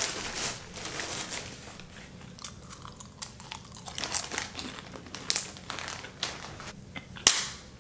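A person chewing crunchy food close to the microphone, with irregular crackly crunches.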